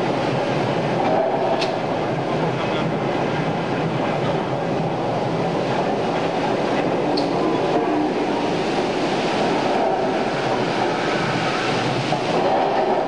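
Steel hot-rolling mill at work: a glowing slab running along the roller table and through the rolls, making a steady rumbling clatter. Two sharp metallic clinks stand out, one early and one about halfway through.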